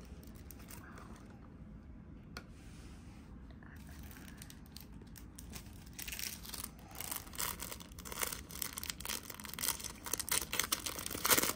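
Packaging being handled: soft clicks at first, then crinkling and tearing from about halfway, with the loudest rustle near the end.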